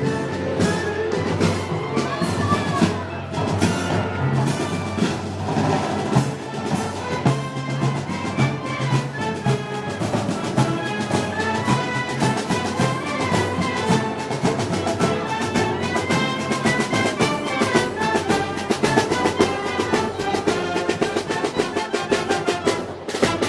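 Brass band with drums playing Moros y Cristianos festival music, with a steady driving beat under sustained brass melody.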